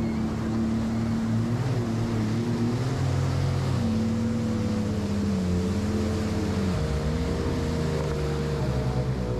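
Jet ski engine running at speed while towing a tube, its pitch wavering slightly up and down. Under it is the rush of water spray from the wake and wind on the microphone.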